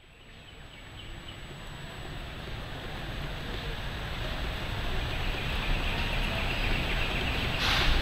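Outdoor forest ambience fading in and growing louder: a steady noisy rush with a low rumble of wind on the microphone, and a faint high steady hum that becomes clearer in the second half. There is a short sharp sound near the end.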